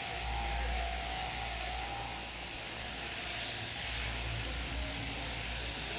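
Electric sheep-shearing handpiece running with a steady buzz and hum as it clips through a fleece.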